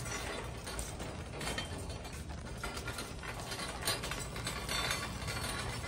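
Wire shopping cart being pushed, its wheels and frame rattling with many small faint ticks.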